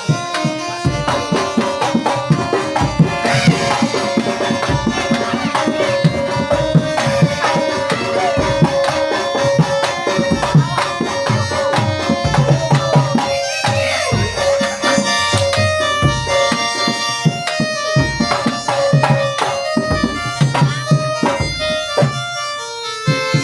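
Traditional Javanese-style dance music: hand drums beat a busy rhythm under a reedy, shawm-like wind instrument that holds a steady note while a melody moves above it.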